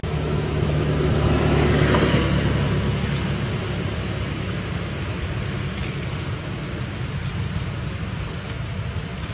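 Steady low rumble of a motor vehicle engine running nearby, slowly fading, with a few faint high clicks about six seconds in.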